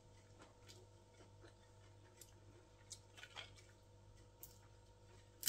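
Near silence: faint sounds of eating rice and fish by hand, a few soft clicks over a steady low hum.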